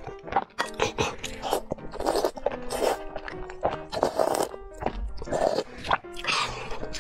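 Background music over close-miked eating sounds: slurping and chewing of glass noodles in spicy sauce, repeated every second or so.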